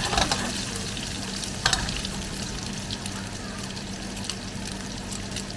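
Garlic sizzling in hot oil in a pan while it is stirred, a steady hiss with a couple of sharp clicks near the start and about a second and a half in.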